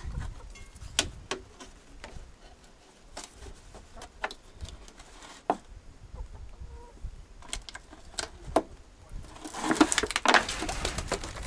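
Domestic hens clucking, with scattered short clicks and knocks, and a louder burst of noise about a second and a half long near the end.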